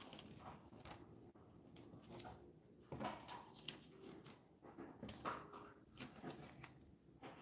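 Faint rustling and crinkling of a plastic stencil sheet and masking tape being handled and pressed down, with scattered light clicks.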